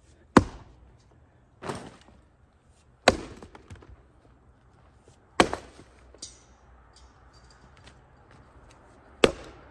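Axe chopping into a large wooden stump round: five sharp blows at uneven intervals, the second softer than the others, as chunks are split off its edge for firewood.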